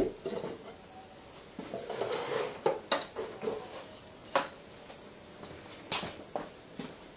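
Knocks and scraping of wood as the panel of a wooden storage box is handled and taken off, with sharp knocks near the start and about three, four and a half and six seconds in.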